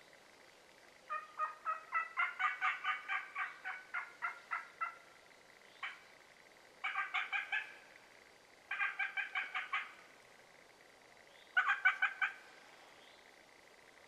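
Wild turkey calling in runs of rapid repeated notes. One long run lasts about four seconds, followed by a single note and three short runs.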